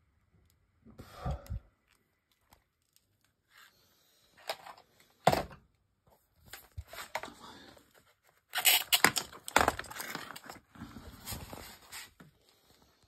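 Irregular rustling and scraping noises in a small room, with a sharp knock about five seconds in and a denser run of rustling near the end.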